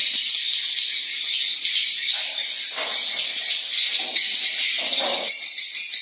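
Swiftlet calls: dense, continuous high chirping filling a swiftlet house's roosting room.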